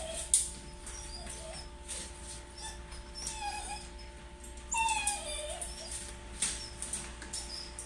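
Shiba Inu whining while left alone, with two high, falling whines about 3.5 and 5 seconds in. Short knocks and rustles run between them, with a sharp knock near the start.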